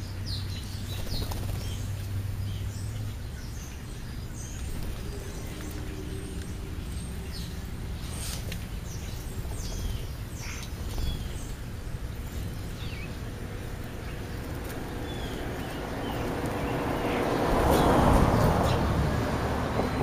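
Short high chirps scattered throughout from a flock of house sparrows and European starlings feeding on the ground. Near the end a broad rushing noise swells up and fades away over a few seconds.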